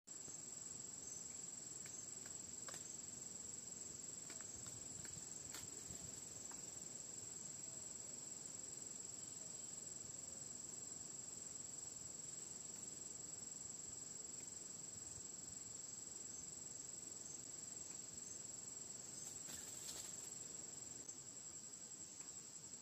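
An insect's steady, unbroken high-pitched trill, with a few faint clicks.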